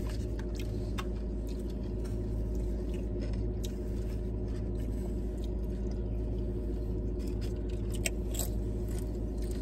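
Steady hum of a car running, heard from inside the cabin, with scattered faint crunches and rustles of tortilla chips being picked from foil trays and chewed.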